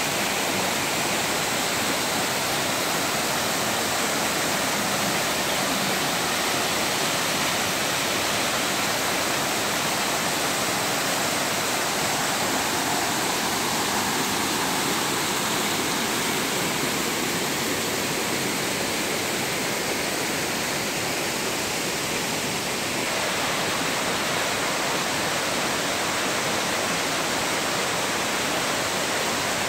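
Waterfall cascading in several streams down rock faces, a steady rushing of water.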